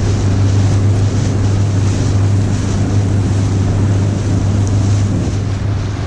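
Jon boat's outboard motor running steadily under way, a constant low drone, with wind and rushing water over it.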